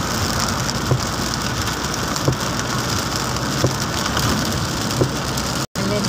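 Rain falling on a moving car and tyres hissing on the wet road, heard from inside the cabin, with a short knock about every second and a half as the windscreen wipers sweep. The sound cuts out for an instant near the end.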